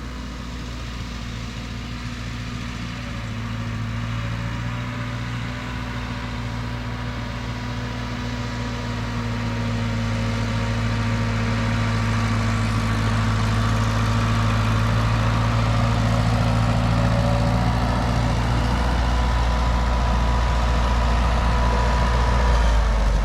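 Ford 9N tractor's four-cylinder flathead engine running at a steady speed while pulling a loaded manure spreader. It grows louder as the tractor approaches.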